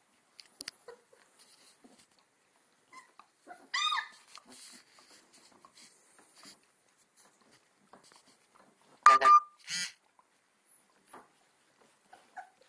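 Two-week-old Alaskan Malamute puppies whimpering. There is one brief call about four seconds in, then a louder call about nine seconds in, followed closely by a shorter one. Faint scuffling fills the gaps.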